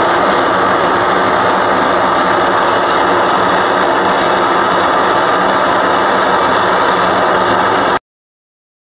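Gas burner flame blowing steadily into a small home-made melting furnace, with silver molten in the crucible. It cuts off abruptly about eight seconds in.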